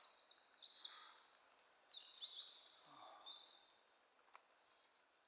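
Small songbirds calling together: many high-pitched, overlapping short chirps and quick falling notes, fading out near the end.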